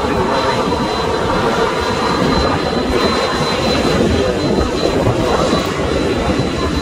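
Ryanair Boeing 737-800's CFM56 turbofan engines running steadily as the airliner rolls down the runway after landing, a broad jet rush with a thin, steady high whine above it.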